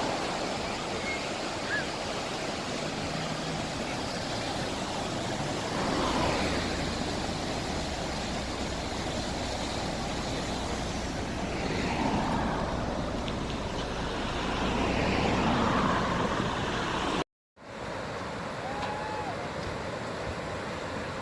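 Desert flash-flood water rushing in a steady wash of noise, with faint voices now and then. There is a short break about 17 seconds in, after which the rushing carries on more quietly.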